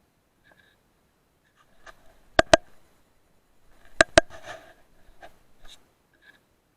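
Sharp clicks in two quick pairs about a second and a half apart, with faint short chirps around them.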